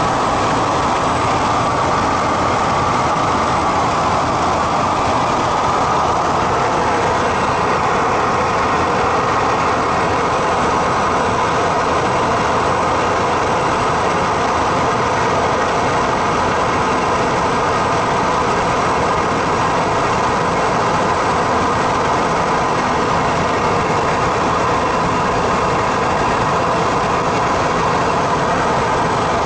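Single-engine propeller airplane in cruise flight, heard from inside the cockpit: the engine and propeller make a loud, steady drone mixed with a broad rush of noise, with no change in power.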